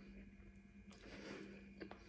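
Faint close-up chewing and soft wet mouth clicks from someone eating, over a low steady electrical hum.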